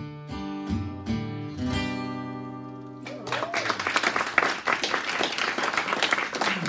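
Acoustic guitar playing the last notes of a song, the final chord left ringing and fading; about three seconds in, the audience breaks into applause.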